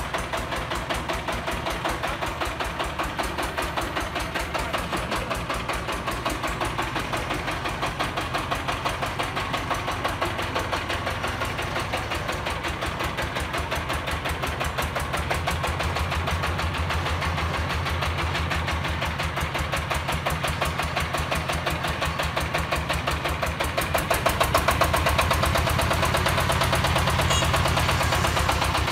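Diesel engine of a Hồng Hà 12-bag self-propelled concrete mixer running under load as the machine is driven down ramps, a rapid, even pulse that gets louder about 24 seconds in.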